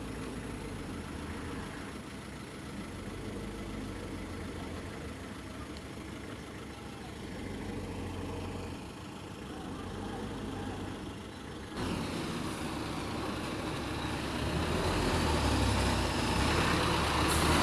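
Vehicle engines idling with a steady low rumble in a stopped queue. About twelve seconds in, a heavy tractor-trailer truck's engine comes in suddenly and grows steadily louder as the truck approaches and passes close by.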